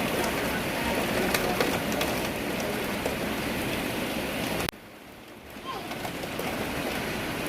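Rain falling steadily, with scattered drop ticks. It cuts abruptly to much quieter about two-thirds of the way through, then swells back up, with a few faint bird chirps.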